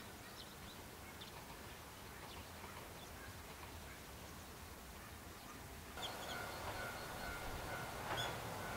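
Faint outdoor ambience with scattered short bird chirps. About six seconds in, the background steps up to a louder hiss carrying a thin steady high tone, with a few more chirps.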